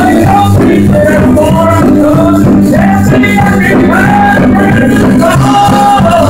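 Loud music: a song with band accompaniment, a melodic lead line moving over a steady low backing.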